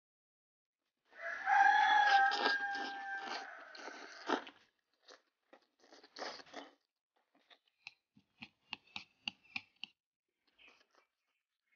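Close-miked eating of rice with chopped chili sauce and green chilies. About a second in there is a loud noisy stretch that carries a steady tone. After it come a crunchy bite and a run of quick, crisp clicks, about four a second.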